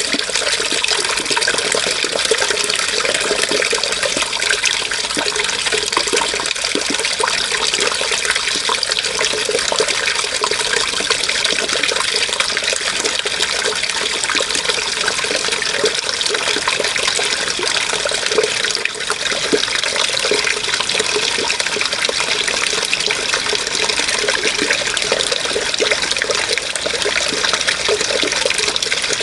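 Running water, flowing steadily with a fine, continuous splashing texture.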